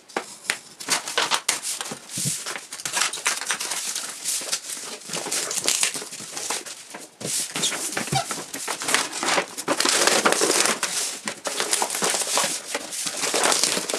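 White packing paper on a parcel being cut, torn and crumpled as it is ripped off a cardboard box by hand: irregular rustling and crinkling throughout.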